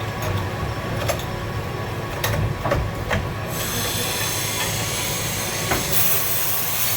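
A few sharp clicks and knocks, then about halfway through a MIG welding arc starts and runs as a steady hiss that grows louder near the end.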